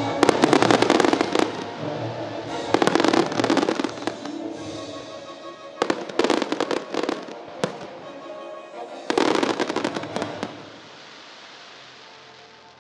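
Aerial fireworks bursting in four quick volleys of bangs and crackles, a couple of seconds apart. The bangs stop a couple of seconds before the end, leaving a low hiss.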